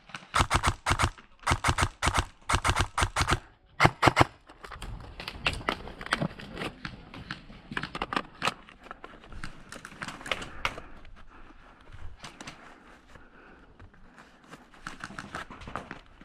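Airsoft gun firing four quick bursts of rapid shots within the first four seconds, followed by scattered, fainter shots for the rest of the time.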